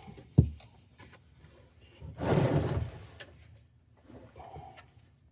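A metal toolbox drawer: a sharp knock near the start, then about two seconds in a sliding rattle lasting about a second, with a few light clicks.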